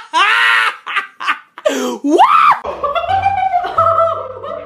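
A woman screaming loudly with her mouth wide open for under a second, then a shouted "What?", followed by background music with laughter over it.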